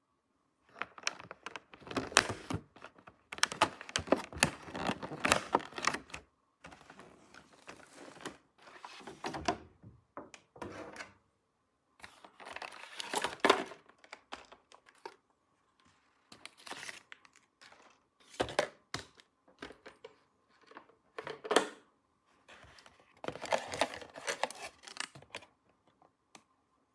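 Plastic toy packaging and small plastic toy pieces being handled: spells of crinkling and rustling mixed with light clicks and taps, broken by short pauses.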